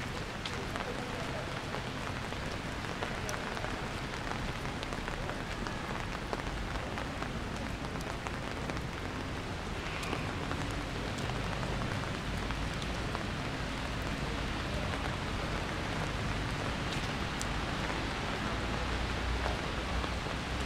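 Steady rain falling, an even hiss dotted with the ticks of single drops, with a low rumble growing near the end.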